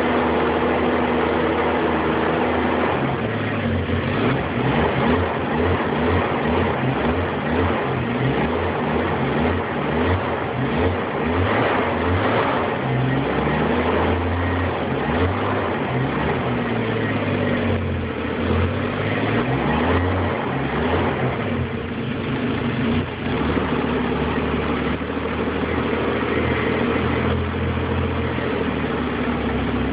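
Engine running on its first start-up. It holds a steady speed for about three seconds, then its speed keeps rising and falling as it is revved.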